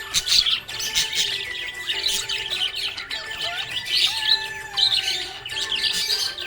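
Budgerigars chirping and warbling in a rapid, continuous chatter of short high chirps.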